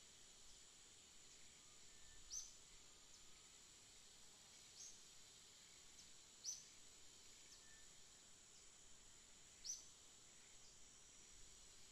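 Faint forest ambience: a steady high insect drone, with short high chirps every couple of seconds, the clearest about two and a half, six and a half and ten seconds in.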